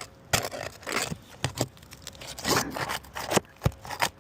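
Asphalt roof shingle being pried up and torn loose: scraping and crackling with several sharp snaps as it cracks and breaks.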